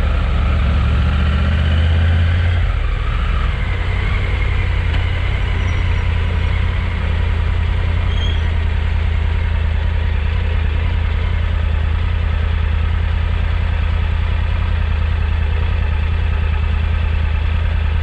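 Motorcycle engine running steadily at low revs, a little louder for the first couple of seconds and then settling to an even hum.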